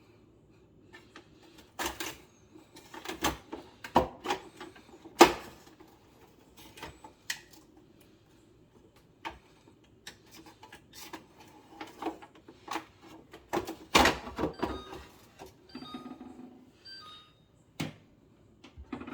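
Irregular clicks and knocks of refrigerator compartments, bins and drawers being opened and handled, with the loudest knocks about 5 seconds and 14 seconds in.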